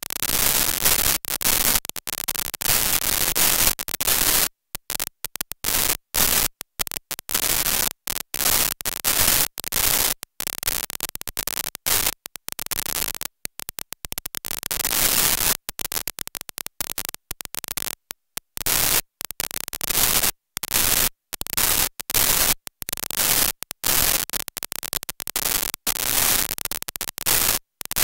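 Loud hiss-like digital static that keeps cutting out to dead silence and back, irregularly and several times a second, with no speech coming through: a glitching, corrupted audio track.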